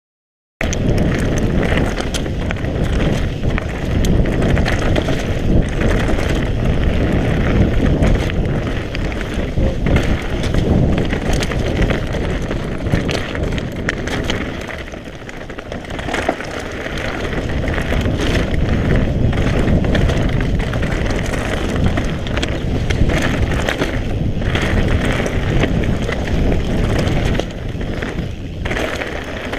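Mountain bike ridden fast down an enduro trail: steady tyre roar over dirt and roots, with frequent clattering from the bike and wind noise on the microphone. It starts abruptly about half a second in.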